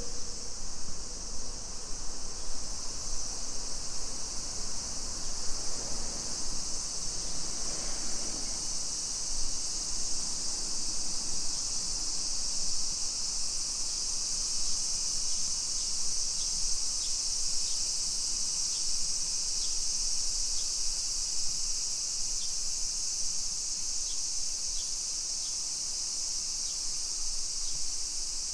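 Insects droning in a steady, unbroken high-pitched buzz.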